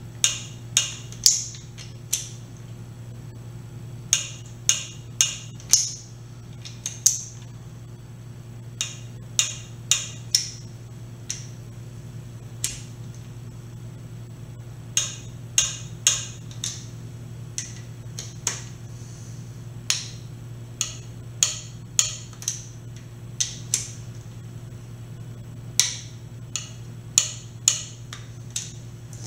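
Ratchet wrench clicking in short runs of sharp clicks as the engine's main bearing support plate bolts are run down and torqued to 15 ft-lbs, over a steady low hum.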